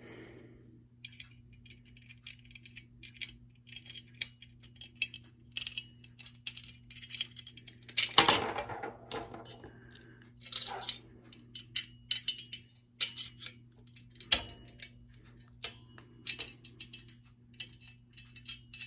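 Small metal parts of a sewing-machine binder attachment clicking and clinking together as the pieces are fitted and a tiny screw is worked into place, in irregular taps with one louder clatter about eight seconds in. A faint low hum runs underneath.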